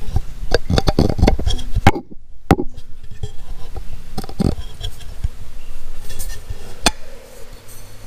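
Close handling noise from an aluminum intercooler charge pipe turned in the hand right at the microphone: irregular knocks, clicks and rubs, thickest in the first two seconds, with a brief hush a little after two seconds.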